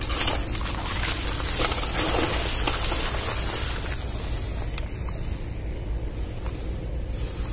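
Leaves and twigs rustling and snapping as someone pushes through dense scrub, over a steady low rumble. A short, high, wavering chirp comes about six seconds in.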